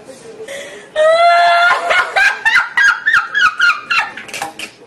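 A woman laughing loudly: about a second in she lets out one long, high held note, then breaks into a quick run of short ha-ha bursts that die away near the end.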